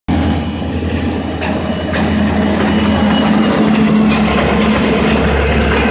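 Passenger train pulling out of the station: the locomotive's engine runs with a steady low hum, with scattered clicks and knocks from the moving cars.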